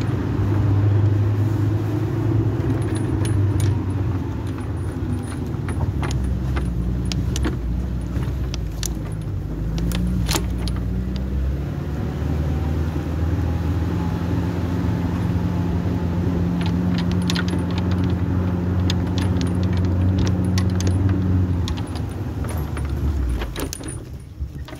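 Small petrol engine running steadily, with loose metal parts rattling and clinking over it. The engine sound dies away near the end.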